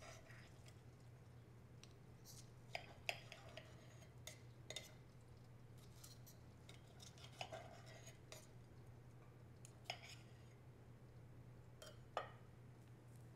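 Knife and fork cutting a cooked chicken tender on a plate, with a few scattered sharp clinks and scrapes of the cutlery against the plate over a faint steady low hum.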